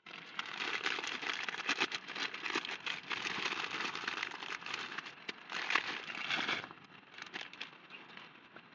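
Heavy rain falling on a surface, a dense crackle of drops that eases to a lighter patter about seven seconds in.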